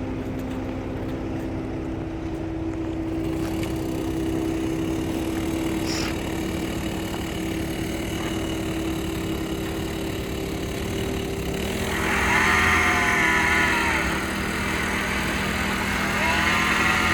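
Engine running steadily at constant speed. Over it come two long wavering calls, one about twelve seconds in and one near the end.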